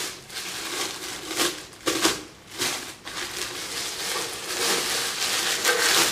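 Clear plastic wrap crinkling and crackling as it is pulled off a metal planter pot by hand, getting a little louder near the end.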